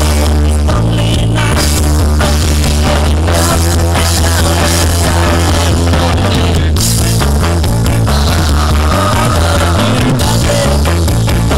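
Loud rock music with guitar and a heavy, steady bass line.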